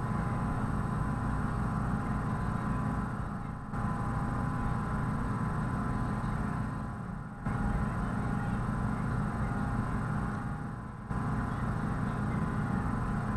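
Steady low hum of a room air conditioner running on high, with a faint steady whine above it. The level sags and then snaps back three times, roughly every three and a half seconds.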